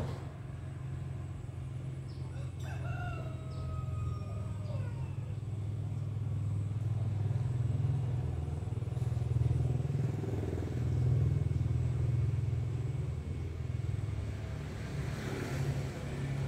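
A rooster crows once, a pitched call about two seconds long, a few seconds in. Under it a steady low hum swells through the middle.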